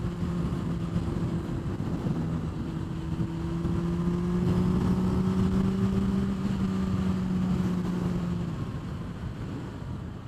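Honda CBR600RR inline-four engine running at highway speed over wind rush. Its note holds steady, dips briefly about two seconds in, then climbs slowly and fades out near the end.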